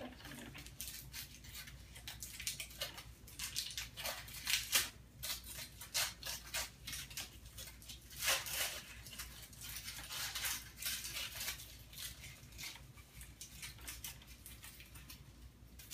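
Fingers breaking and scraping apart a bath bomb to get at the plastic surprise egg inside: irregular scratchy crackles and rubbing.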